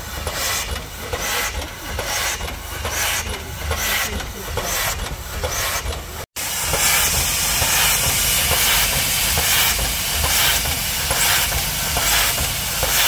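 Steam locomotive chuffing in a steady rhythm of about two beats a second, over a constant hiss of steam. About halfway through the sound drops out for an instant, then returns as a louder, steadier hiss with the chuffs fainter.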